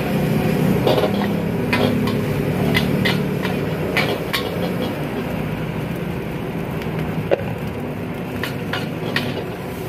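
Gas wok burner running with a steady roar under a steel wok of frying rice, as a metal ladle and spatula clank and scrape against the wok about ten times.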